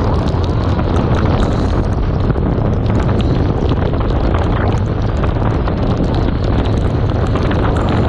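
Wind buffeting the microphone on a moving big motorcycle, with engine and road noise beneath, loud and steady.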